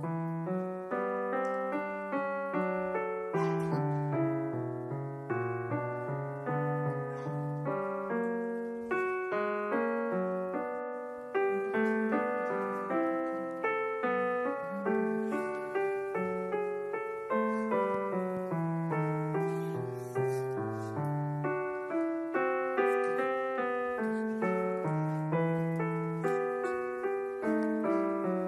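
Solo piano music, single notes and chords struck and fading one after another in a steady, gentle flow.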